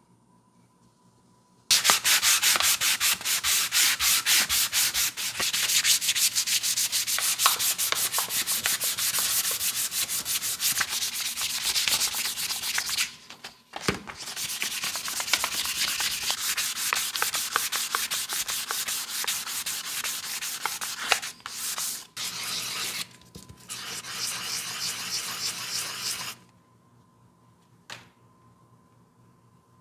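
Sandpaper rubbed quickly back and forth along a bare wooden sickle handle, a steady run of rapid hand-sanding strokes. It starts about two seconds in, pauses briefly about halfway, breaks a few times, and stops a few seconds before the end, after which comes one soft tick.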